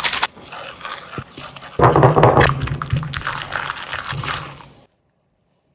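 Slime being crushed and squished, a wet crackling full of small pops, that stops about five seconds in.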